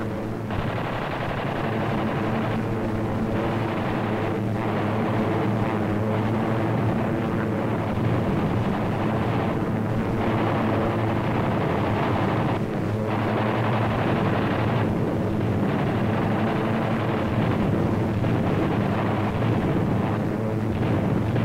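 Propeller aircraft engines droning steadily, with a few brief dips, heard through the narrow, muffled sound of an old film soundtrack.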